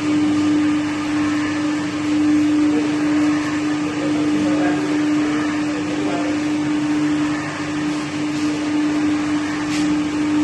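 Khoya-making plant machinery running steadily: a continuous motor hum with one strong steady tone under a wash of mechanical noise.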